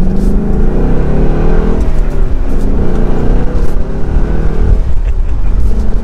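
Ford Mustang GT's naturally aspirated 5.0-litre Coyote V8 accelerating through the gears of its 6-speed manual, on the standard exhaust without active valves. The revs climb, break about two seconds in for a gear change, climb again, and fall away near five seconds.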